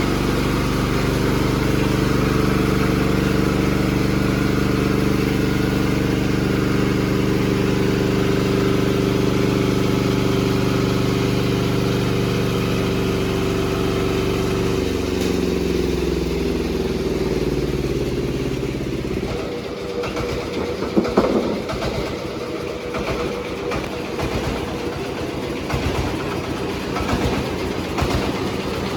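Horizontal bandsaw sawmill's engine running steadily. About halfway through its pitch falls as it slows, and it settles into an uneven, pulsing idle with a few sharp knocks.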